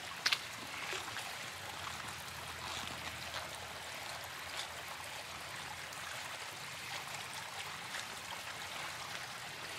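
Steady trickling and lapping of pond water around a wader standing waist-deep and working with his hands in the water at the bank. A sharp click comes about a third of a second in.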